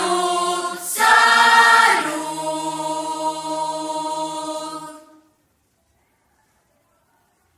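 Choir singing, with a louder entry about a second in, then one long held final chord that fades out about five seconds in.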